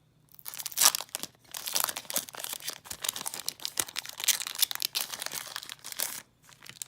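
Foil Stardust Overdrive booster pack wrapper crinkling and tearing as it is torn open, a dense crackle that stops about six seconds in.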